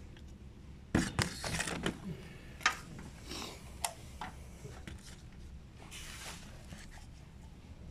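Hand tools clattering and knocking as they are put down on a workbench: a quick run of sharp metal-and-plastic clicks about a second in, then a few scattered knocks.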